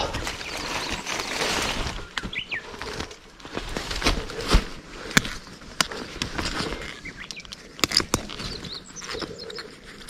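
Rustling and crackling of undergrowth close by, with scattered sharp snaps, as someone works through brush picking fern shoots; small birds chirp briefly a couple of times.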